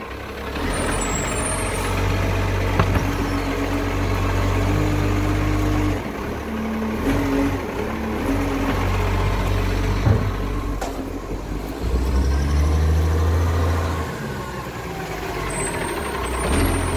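Iveco side-loader garbage truck's diesel engine running and revving in spells as the hydraulic arm lifts and empties a wheelie bin, with the chugging it makes when picking up a bin. Short air-brake hisses come about a second in and near the end, as the truck moves up to the next bin.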